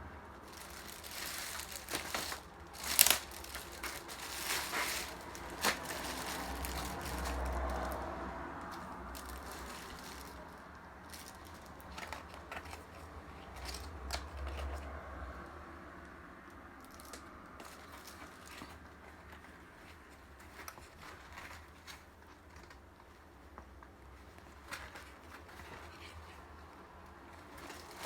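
Packaging being handled and opened: irregular crinkling, rustling and tearing, with a few sharp crackles. The loudest is about three seconds in, and the sounds grow sparser and quieter after the first half.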